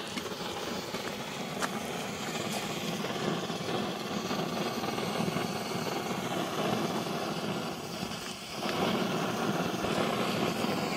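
Gas blowtorch flame running with a steady rushing noise as it burns a sheep's head; the noise dips briefly about eight seconds in, then picks up again.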